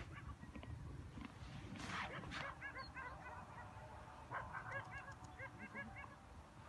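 Puppies yipping and whining while they play: quick runs of short, high, squeaky yelps that come in several bursts, with a brief rustle about two seconds in.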